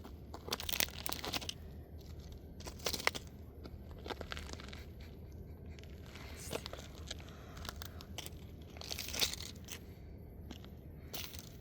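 Plastic toy car crunching and cracking under a sneaker, in irregular crackles and snaps a second or more apart, the loudest crunch about three-quarters of the way through.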